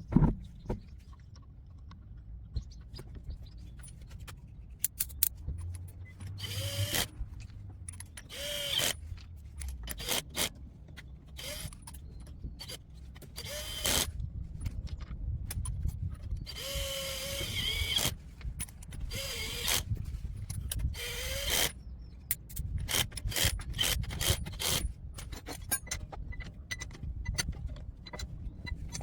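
Power tool driving wheel nuts during a tyre change. It runs in about six short whirring bursts, each rising in pitch as the motor spins up, with clicks and knocks of the nuts and wheel between them.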